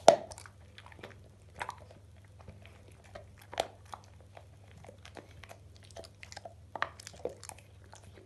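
Staffordshire bull terrier chewing a bone: irregular sharp crunches a second or two apart, the loudest right at the start, with softer gnawing between them.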